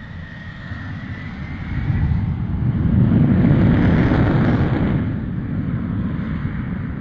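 Jet fighter engines at high power: a loud rushing noise that swells to a peak about three to four seconds in, then fades, with a faint steady whine near the start.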